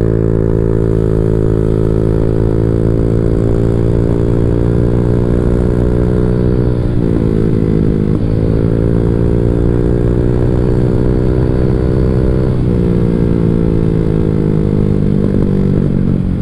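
Honda Vario 150 scooter's single-cylinder engine heard through a long Black Devil R2 aftermarket exhaust, pulling steadily under throttle while riding. Its note is dense and full, which the long silencer gives. The pitch holds nearly level, with brief dips about seven and eight seconds in and another small change near the thirteenth second.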